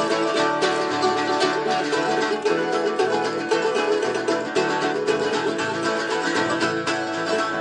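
Live folk band playing instrumentally, without singing: a mandolin and acoustic guitars strum and pick a steady, even rhythm.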